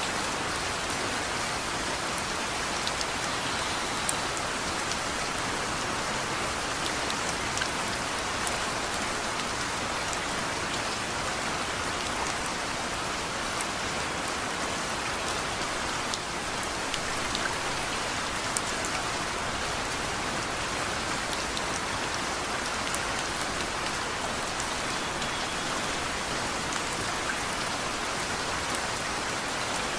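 Steady rain falling, an even hiss with scattered sharp ticks of single drops landing close by.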